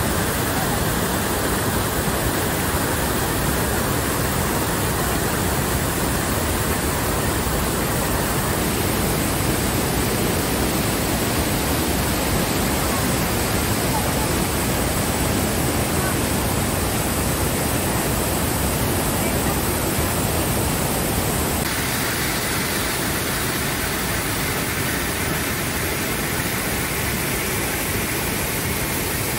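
The Rhine Falls, a wide river waterfall in high flow, with white water rushing and crashing over rocks in a loud, steady noise. The sound shifts slightly about a third of the way in and again near the three-quarter mark.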